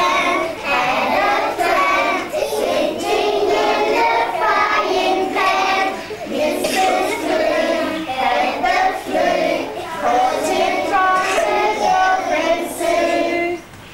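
A group of kindergarten children singing a song together, stopping just before the end.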